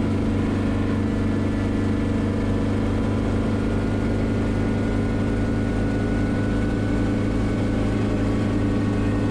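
Steady drone of a Schweizer 300CB helicopter's piston engine and rotors in flight, heard from inside the cabin, with an even, unchanging low hum.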